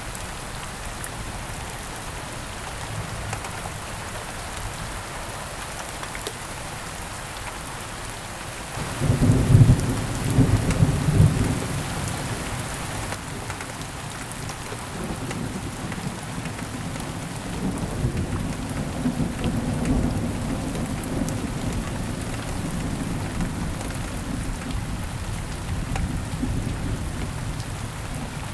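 Steady heavy rain, with a thunderclap breaking in suddenly about a third of the way through. It peaks loud and low for a couple of seconds, then rolls on as a long rumble that swells again after the middle.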